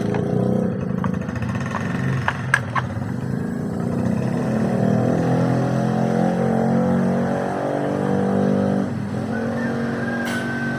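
A compressor is running with a steady motor drone while it pumps pressure through a freezer's evaporator line to blow out trapped oil. There are a few sharp clicks a couple of seconds in, and a thin high whistle starts near the end.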